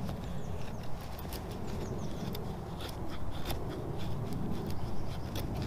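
Scandi-ground carbon-steel bushcraft knife (Casstrom Woodsman K720) carving feather sticks down a stick of beech: a quick, irregular run of short scraping cuts as curls are shaved off. The wood is a bit far gone, partly rotten.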